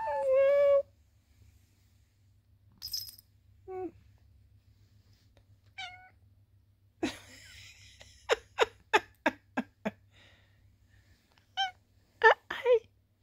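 Chocolate tabby cat meowing and chirping close to the microphone. A meow falls in pitch at the start. Short scattered chirps follow, then, from about halfway, a quick run of short sharp sounds at about three a second and a few louder chirps near the end.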